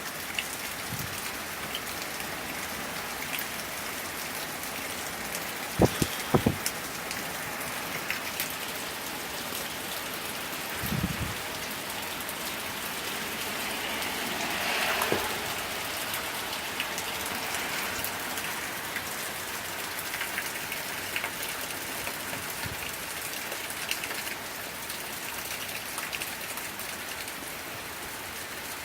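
Steady rain falling on surfaces in a summer thunderstorm, with a few sharp, loud drip knocks about six seconds in and a brief swell in the rain around the middle.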